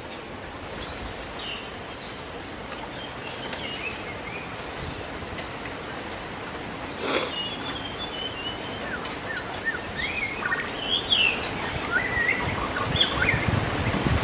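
Birds chirping and calling over a steady outdoor hiss, the calls coming more often in the second half, with a single sharp click about halfway through.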